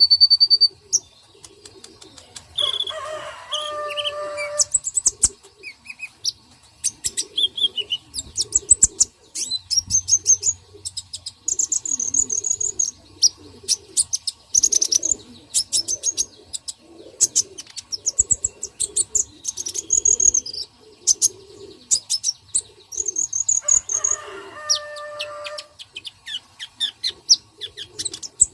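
Several birds chirping and calling in quick, high, repeated notes, with a lower song phrase of falling stepped notes heard twice, about three seconds in and near the end.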